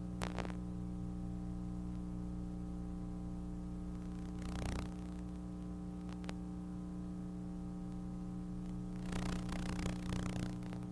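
Steady low electrical mains hum on the soundtrack, with a few faint clicks and two short spells of crackling static.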